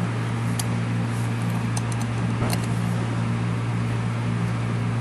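A steady low hum fills the background, with a few faint metallic clicks as a small key turns the screws that fasten the mount's puck in place.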